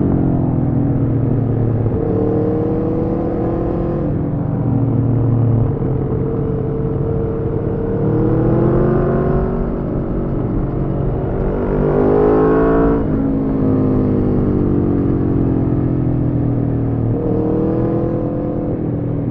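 Aprilia Tuono V4 motorcycle's V4 engine through an Arrow slip-on exhaust with the catalyst removed, heard from the rider's position while riding. The revs fall at first, then climb twice, the second climb cutting off with a sharp drop about thirteen seconds in; between these the engine holds steady revs.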